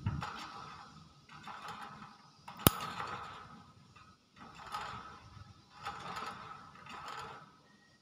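Hill myna making short, raspy cough-like sounds, about half a dozen spaced roughly a second apart. A single sharp click about two and a half seconds in.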